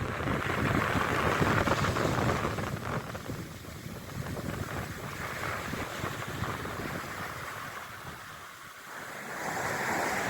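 Mediterranean Sea surf washing on the shore, with wind buffeting the microphone. It eases off through the middle, and a new wave rushes in near the end.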